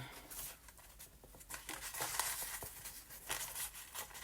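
Paper pages rustling and crinkling faintly as they are handled, with a few soft scrapes and taps.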